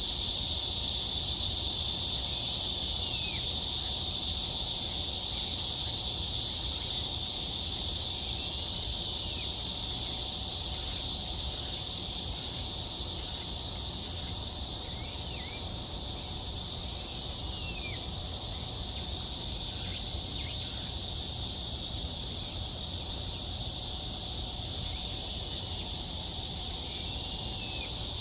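Steady, high, hissing chorus of insects, with a few short arching chirps over it every few seconds.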